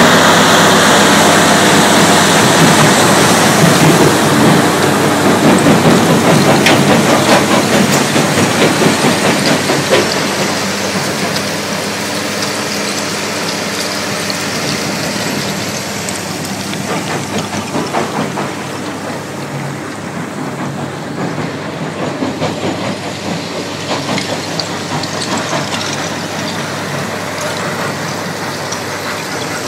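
Extec C10 mobile jaw crusher at work crushing rubble: a steady diesel engine drone under an irregular clatter and knocking of broken concrete and stone. It is loud for about the first ten seconds, then fainter.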